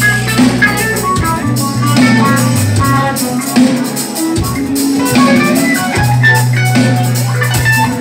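Live reggae band playing: drum kit, electric guitar and keyboard over a bass holding long low notes.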